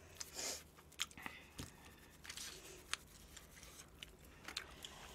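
Faint eating and handling sounds: scattered short clicks and brief rustles from chopsticks, chewing fried chicken and a carton or wrapper being handled.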